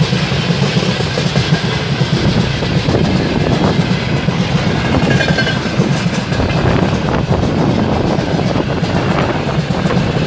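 A train passing close by, its wagon wheels clattering steadily over the rail joints. The noise stays loud and even throughout.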